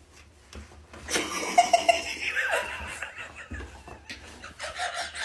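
A person laughing in short bursts, starting about a second in and coming back near the end.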